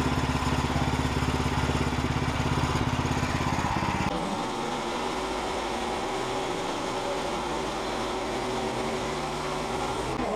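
Woodland Mills portable bandsaw mill's gasoline engine running steadily. About four seconds in the sound changes abruptly, dropping to a lower, quieter steady run.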